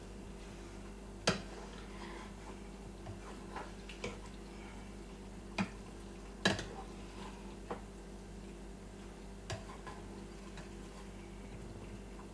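Scattered light clinks and knocks of kitchen utensils against pots and dishes, a few seconds apart, over a steady low hum.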